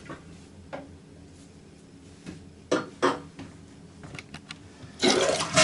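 A few light clinks and knocks, like a porcelain toilet tank being handled, then near the end a loud rush of water as the toilet is flushed.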